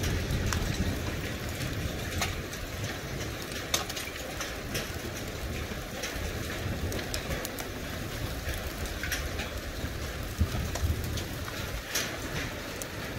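Heavy rain and hail pouring down, with scattered sharp clicks of hailstones striking surfaces over a steady hiss and a low rumble underneath.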